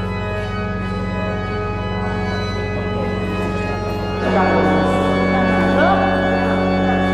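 Organ playing sustained chords over a held low bass, swelling louder about four seconds in.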